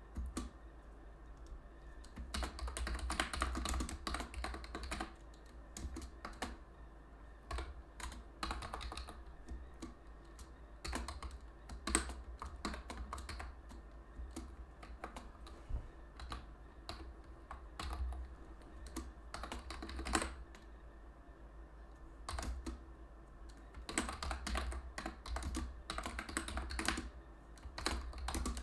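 Typing on a computer keyboard: quick runs of key clicks in uneven bursts, broken by short pauses.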